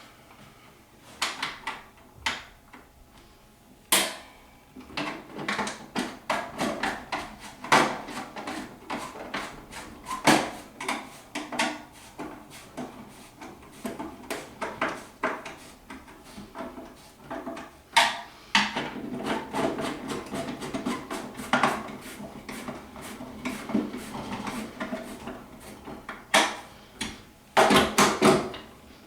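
Irregular knocks, clicks and clatter of vending-tower parts being handled and slotted back together by hand, with a sharp knock about four seconds in and a quick run of knocks near the end.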